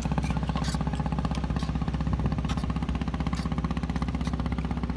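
An engine idles steadily with a fast, even throb. Short slurps and scrapes of noodles being eaten with forks from a plastic tray come now and then over it.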